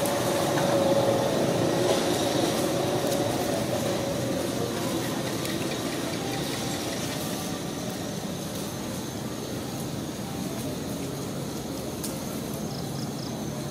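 A steady engine hum that slowly fades away over the first several seconds, leaving a constant background hiss.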